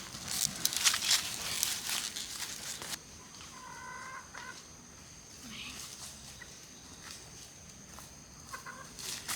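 Chickens clucking, with two short calls, one about a third of the way in and one near the end. For the first three seconds a run of clicks and rustles is the loudest sound.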